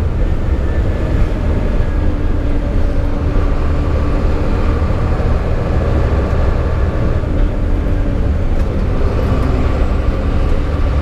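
A moving vehicle running steadily: a constant low engine and road rumble with a faint steady hum above it.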